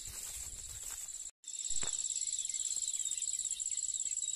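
Field insects trilling in a steady, high-pitched drone with a rapid, even pulse. The sound drops out completely for a moment about a second and a half in, and a single click follows shortly after.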